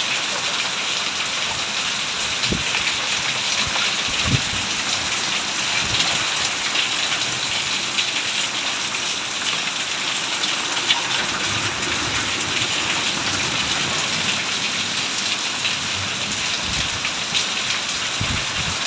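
Heavy cyclone rain pouring steadily, with a few brief dull low thumps.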